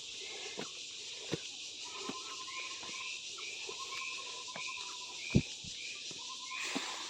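Steady high buzz of forest insects, with an animal's chirping call repeated in an even series over a held tone from about two seconds in to near the end. A few sharp knocks cut through, the loudest about five seconds in.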